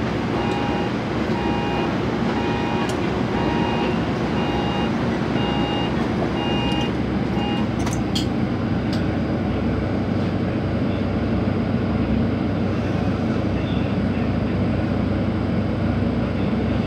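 Scomi monorail train's door-closing warning beeps, a two-tone beep repeated steadily for about seven seconds, then a sharp knock as the doors shut about eight seconds in. Under it the standing train gives a steady mechanical hum.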